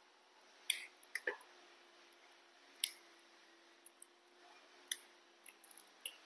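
Baby macaques cracking sunflower seed shells with their teeth: scattered sharp cracks and clicks, irregular and a second or more apart, over a faint steady hum.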